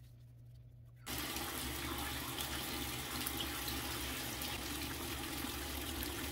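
Bathroom sink tap turned on about a second in, water running steadily into the basin.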